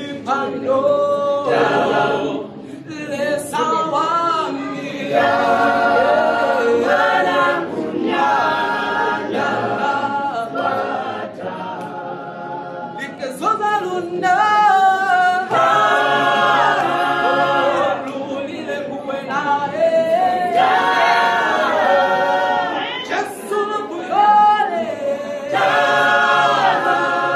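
A small mixed group of men's and women's voices singing a cappella in harmony, in phrases of held notes with short breaks between them.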